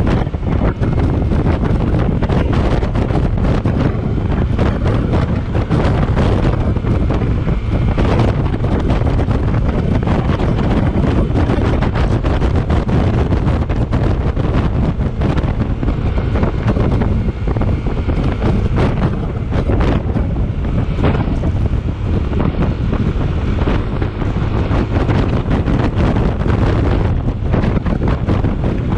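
Steady, heavy wind noise buffeting the microphone of a Yamaha NMax scooter ridden at highway speed, drowning out the engine.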